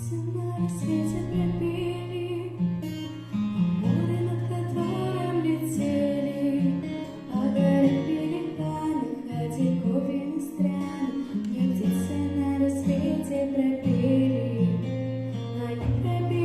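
Song music led by plucked acoustic guitar over a steady bass line.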